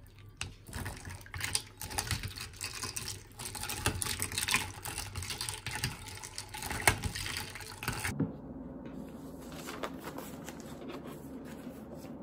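A spoon stirring ice cubes in iced coffee in a ceramic mug, with rapid, uneven clinking and rattling of ice against the mug's sides. About eight seconds in, this cuts off suddenly and a steady low hum remains.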